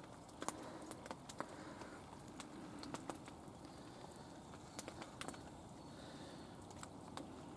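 Hail shower: hailstones landing in sharp, irregular ticks over a faint steady noise.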